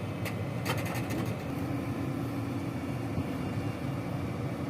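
Heavy construction vehicle's engine running steadily, with a few sharp metallic clicks and rattles in the first second and a steady hum joining about a second and a half in.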